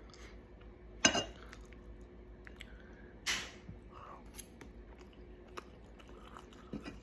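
A person eating a meal: chewing, with a few sharp clicks or knocks of utensils and dishes, the loudest about a second in and another a little after three seconds.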